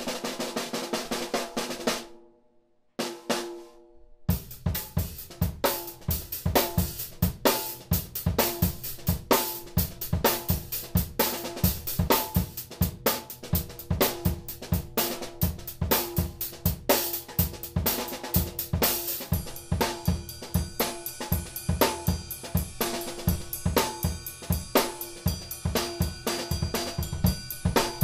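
A PDP 6x10 popcorn snare played on its own, stopping about two seconds in. After a short pause a full drum-kit groove starts: bass drum, hi-hat and the small snare, with a ringing tone under the hits. From about two-thirds of the way through, cymbals ring out more.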